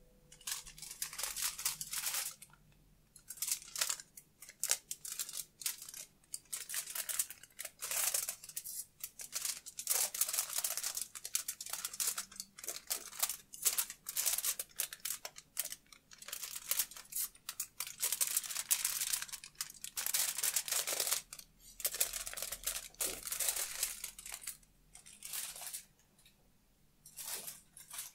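A crumpled sheet of aluminium foil crinkled and shaken by hand in repeated bursts of bright crackling, its position shifting as it is carried around the microphone pair. A short pause comes near the end.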